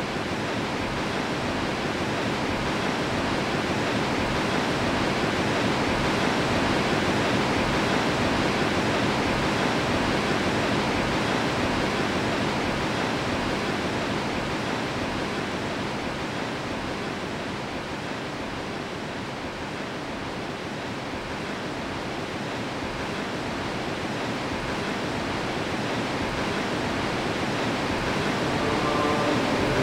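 Steady rush of turbulent white water at the Barnafoss waterfall. It swells gradually, eases off, then builds again.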